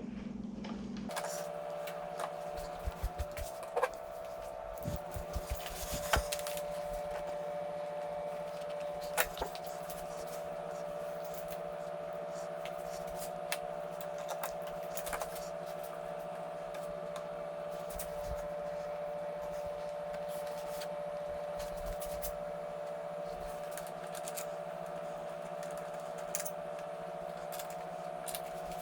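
Scattered light clicks and taps of mirror parts and bolts being handled, most of them in the first few seconds, over a steady hum.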